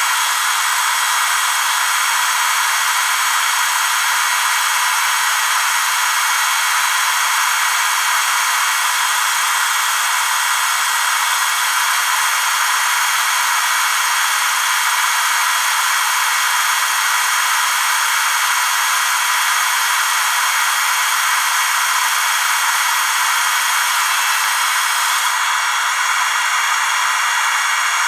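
Steady loud hiss like white noise, with no pitch, strokes or rhythm; its tone turns slightly thinner and brighter near the end.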